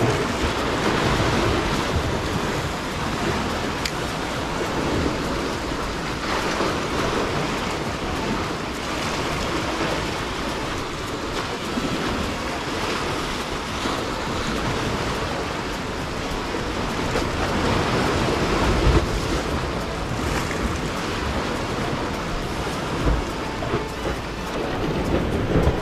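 Sea waves washing and splashing against the concrete tetrapods of a breakwater, swelling and easing, with wind on the microphone.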